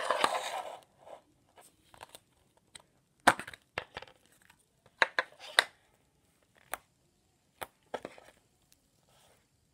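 Handling a clear plastic slime tub and a lump of hard slime: a crinkly rustle at the start, then scattered short clicks and crackles as the stiff slime is tipped out and poked.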